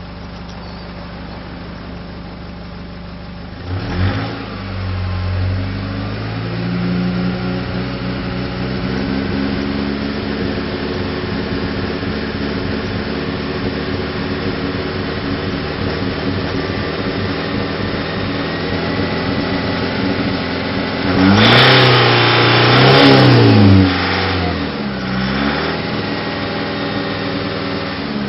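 Exhaust of a Nissan ZD30 four-cylinder turbo-diesel with a misfire, heard at the tail pipe. It idles, is revved about four seconds in and runs steadily, then is revved up and back down around three-quarters of the way through, with a smaller blip after. The misfire is putting a lot of unburnt diesel out the exhaust.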